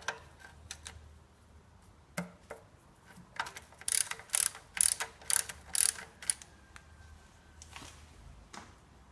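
Ratchet wrench clicking as the 17 mm oil drain plug is unscrewed from the oil pan. Scattered clicks at first, then a run of loud clicks about two a second in the middle, and a few more near the end.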